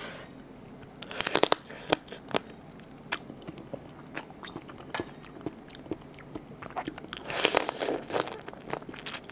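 Close-miked crunching and cracking as the shell and legs of a raw blue swimming crab are bitten and chewed. Sharp cracks come in clusters about a second in and again near the end, with lighter chewing clicks between.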